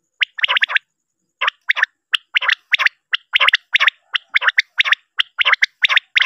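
Recorded common quail calls: a quick group of three clipped notes, a second's pause, then a run of short notes at about three or four a second.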